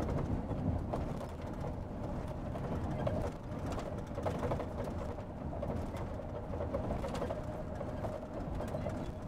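Road noise inside a car cruising at highway speed: a steady low rumble from tyres and engine, with a steady mid-pitched hum over it.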